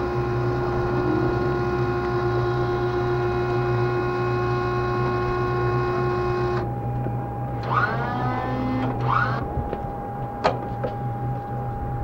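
Steady machine whine from jet aircraft on the flight line: several even tones over a low hum. Just past the middle the higher tones drop away and one tone carries on, with a few short rising chirps and a sharp click near the end.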